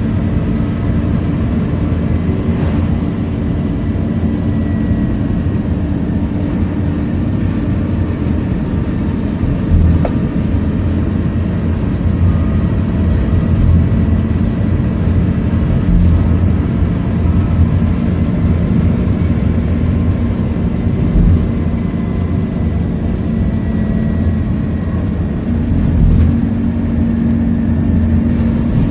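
Scania K230UB bus's five-cylinder diesel engine and road noise heard from inside the passenger cabin as the bus drives along at a steady speed, with a faint high whine over the engine hum. Two brief knocks about a third of the way in and near the end.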